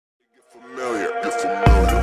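Channel intro music fading in from silence, with held notes and a gliding voice-like line, then a heavy bass and drum hit entering near the end and starting a steady beat.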